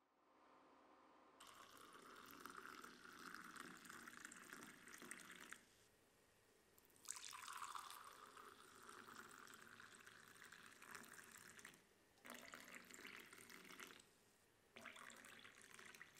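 Tea poured in a thin stream into glass mugs, a faint splashing trickle in four stretches with short breaks between.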